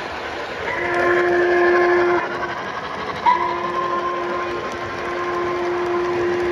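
Model steam whistle from the sound system of a Weaver O gauge Southern PS-4 steam locomotive (upgraded to MTH Proto-Sound 3.0), blowing a chord: a short blast about a second in, then a long blast from about three seconds in. The train's steady rolling on the track runs beneath it.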